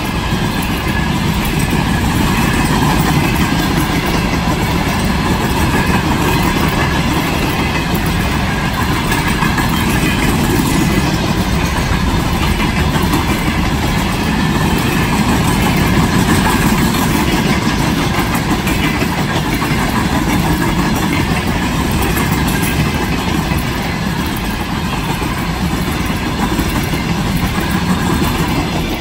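Diesel freight locomotive and its train running, a loud, steady engine rumble mixed with the rattle of the wagons, with no let-up.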